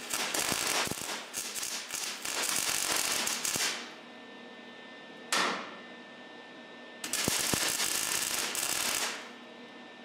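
Wire-feed welder arcing in short runs to fill holes in the sheet-steel body tub of a 1943 Willys MB, crackling loudly. A run of about four seconds with brief breaks, a short tack about five seconds in, then a second run of about two seconds near the end.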